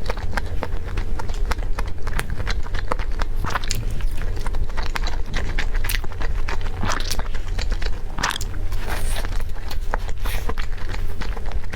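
A person biting and chewing food close to the microphone: a steady run of small, crisp, wet clicks and crunches, over a constant low hum.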